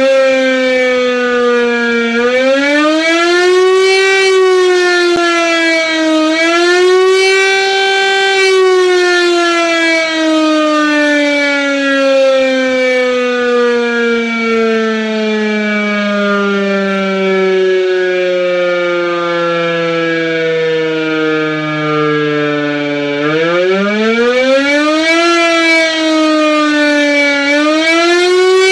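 Civil-defence siren sounding the German ABC-Alarm, the warning of a nuclear, biological or chemical hazard, given as a wailing tone. It rises and falls every couple of seconds, then runs down in a long, slow fall for about fifteen seconds, one of the signal's two interruptions. It then winds back up and resumes wailing near the end.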